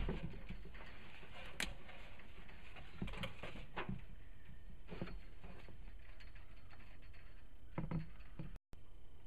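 Scattered knocks and clicks, about six spread over several seconds, from someone handling a homemade CB ground plane antenna's wires and mounting hardware from a ladder.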